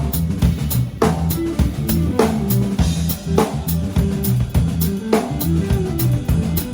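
A small band of drum kit, bass guitar and guitar playing a groove together. Cymbal and snare strokes sit over a bass line that steps between notes.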